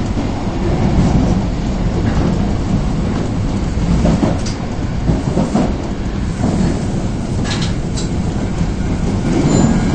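Osaka Metro Tanimachi Line subway train running between stations, heard from inside the car: a steady low rumble of wheels on rail, with a couple of sharp clacks about seven and a half seconds in. Thin high tones start near the end.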